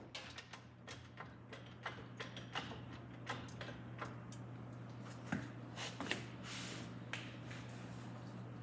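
Irregular metallic clicks and clanks from a floor jack being pumped under a car's lower front control arm, raising it to compress the coil spring into its pocket. A steady low hum runs underneath.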